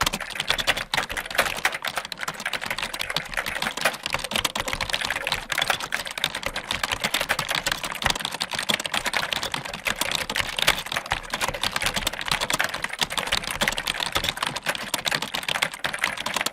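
Computer keyboard being typed on fast and continuously: a dense, even stream of key clicks.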